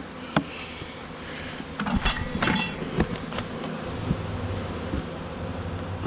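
Honeybees buzzing steadily around an opened hive. Wooden frames knock and a hive tool scrapes against the box, several times in quick succession about two seconds in.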